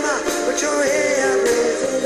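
A song with a singer's voice over instruments and a steady beat.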